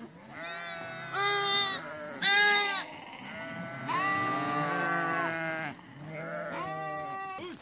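Young goat kids bleating, several wavering cries one after another, the longest lasting about two seconds from about four seconds in.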